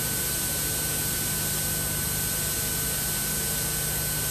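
Steady hiss with a low hum and a faint high whine, the background noise of the recording itself. No tool clicks or other sounds of the work are heard.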